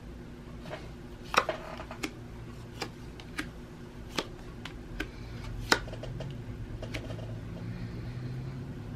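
Several sharp, light clicks and taps at irregular intervals, over a faint low steady hum that rises slightly about halfway through.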